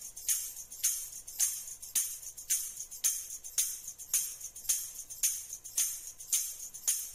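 Sparse background music intro: a jingling, tambourine-like percussion hit on a steady beat, about two hits a second, over a faint low bass.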